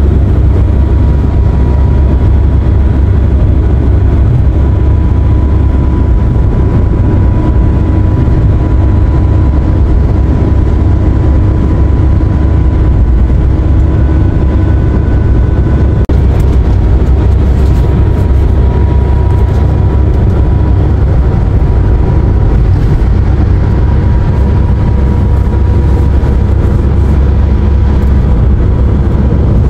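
Steady low road and engine rumble heard inside a passenger van's cabin as it drives at road speed, with a thin steady whine above it.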